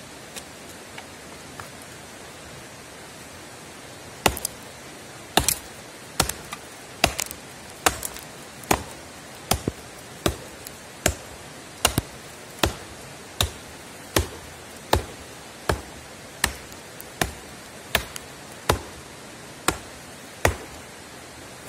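Benman survival axe with a 600 g carbon-steel head chopping into a dry log: about twenty sharp chopping blows, starting about four seconds in and settling into an even rhythm of roughly one blow every three-quarters of a second.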